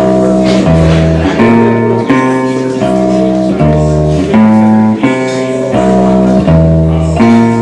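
Electric guitar strumming a chord progression with no singing, the chord changing about every three-quarters of a second.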